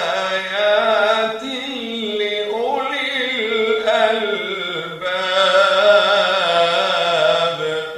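Quran recitation in tajweed style: one voice chants a slow melodic phrase with long held, ornamented notes, breaking off just before the end.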